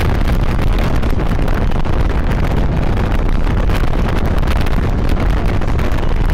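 Wind buffeting the microphone over the steady rumble of a moving road vehicle, loud and unbroken.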